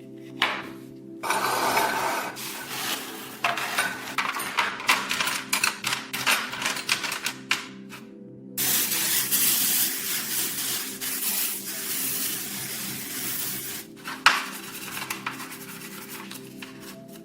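Hand rubbing with an abrasive on the steel of antique shears, first in quick repeated strokes, then as one longer continuous stretch, with a sharp knock near the end. Background music with steady low tones runs underneath.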